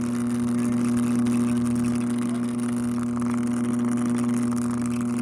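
Vintage alarm clock's buzzer alarm sounding through its speaker: a loud, steady electric buzz that does not change, strong enough to make the speaker vibrate.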